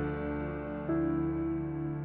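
Background music: slow, sustained piano chords, with a new chord struck about a second in.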